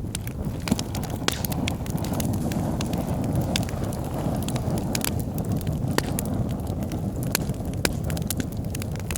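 Wood logs burning in a fireplace: a steady low rumble of flames with frequent sharp, irregular crackles and pops.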